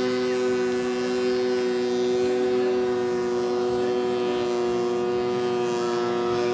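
Snowmobile engine held at one speed, a steady high-pitched drone with no rise or fall.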